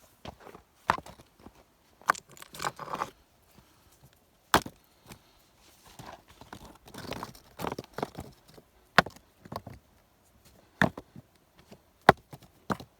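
Wood being worked by hand: sharp wooden knocks, about seven at uneven intervals, with scraping and rustling between them.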